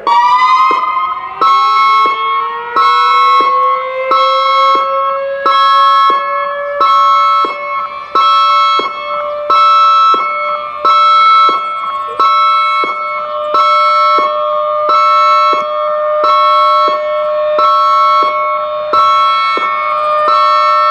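Two outdoor warning sirens together. A Federal Signal 2001-SRN mechanical siren winds up, its pitch rising over the first several seconds and then holding steady. Over it, a Federal Signal EOWS 1212 electronic siren pulses an alert tone on and off a little faster than once a second.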